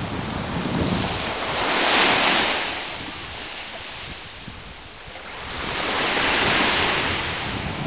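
Ocean waves breaking on the shore and washing up the beach, the hiss of surf swelling and fading twice, about four seconds apart.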